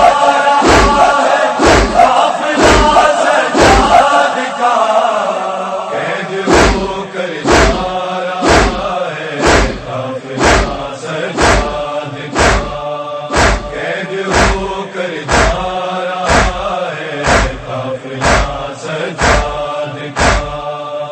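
Male voices chanting an Urdu noha, a Shia lament, with a heavy thump about once a second keeping time. The beat drops out briefly about four seconds in and then resumes.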